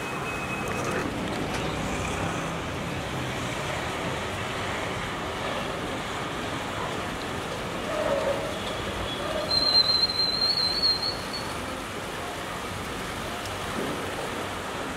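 Steady rushing outdoor background noise, with a brief high whistling tone about ten seconds in.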